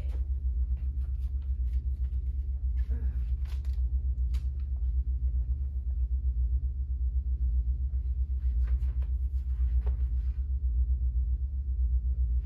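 A steady low rumble, with a few faint knocks and clicks over it.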